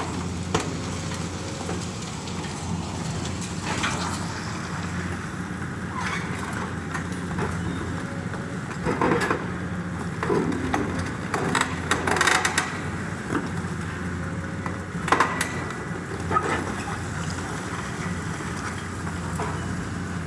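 Caterpillar 324E excavator's diesel engine running steadily while its demolition grapple tears into a building's wall, with several cracks and crashes of breaking and falling debris, the loudest about fifteen seconds in.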